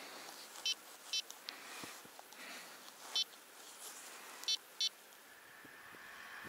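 Garmin Alpha handheld dog-tracking GPS beeping: five short, high electronic beeps, in a pair, a single and another pair.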